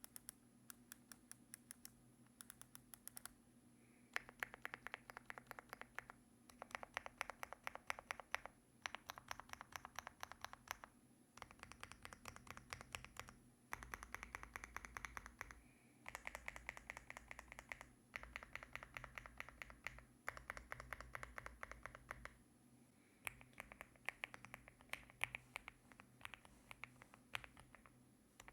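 Typing on a LEOBOG A75 mechanical keyboard with Rambo linear switches. The keystrokes come rapidly in runs of about two seconds, separated by brief pauses. The first few seconds hold only a few faint clicks.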